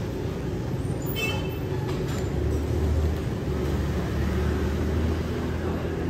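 A steady low rumble like a large vehicle's engine, growing heavier about two and a half seconds in, with a brief high squeal a little after a second in.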